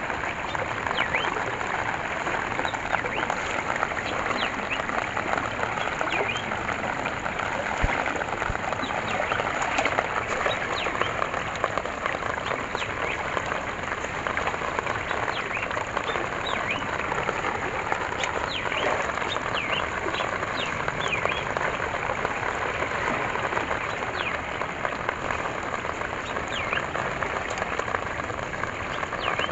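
Muddy runoff water rushing and splashing steadily into a fine mesh fishing net set across a shallow channel. Many short, faint, high chirps come and go above the water.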